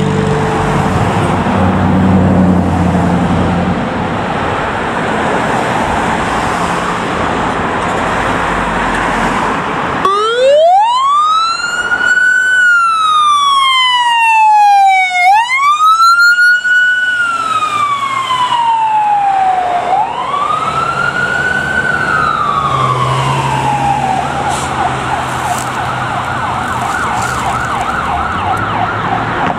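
2014 International/Horton ambulance's engine running as it pulls out, then its electronic siren starts about a third of the way in: three slow rising and falling wail cycles, switching near the end to a fast yelp.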